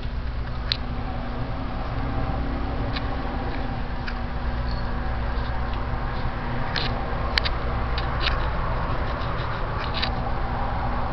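A cat's claws scratching and ticking at the bottom of a door and the tile floor as its paw reaches underneath: scattered light clicks, more of them in the second half, over a steady low hum.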